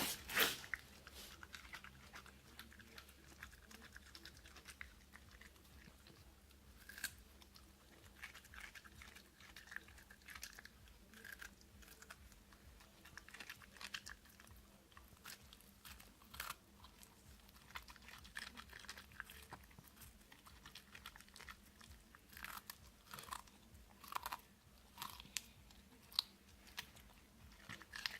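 A West Highland white terrier chewing cucumber: irregular short crisp bites, the loudest just after the start.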